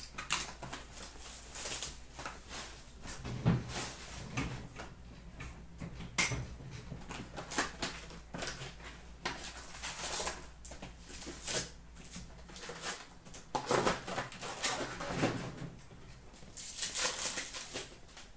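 Hands handling a cardboard hobby box of trading cards and the card packs inside it: irregular rustling, scraping and light taps, with a denser crinkling spell near the end.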